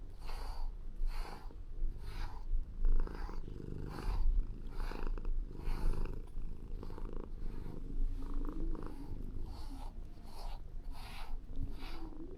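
Calico cat purring close up, a steady low rumble that pulses with each breath in and out: the sound of a content cat.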